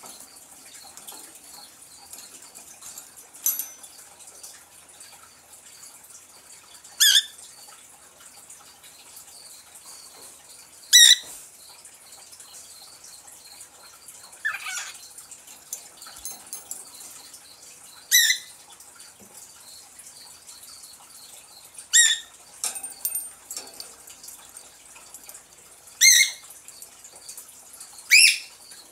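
Cockatiel giving short, loud calls about every three to four seconds, seven in all, over a faint steady hiss.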